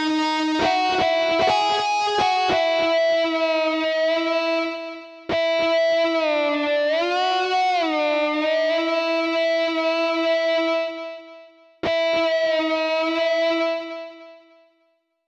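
Distorted electric guitar voice of the ORG 2022 keyboard app, played in three phrases of held notes that each fade away. About halfway through, the pitch bends and wobbles up and down as the on-screen joystick is moved.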